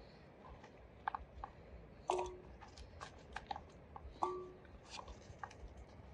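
Chunks of raw breadfruit dropped by hand into an empty metal pot, a scatter of light clicks and knocks, with two louder hits about two and four seconds in that leave the pot ringing briefly.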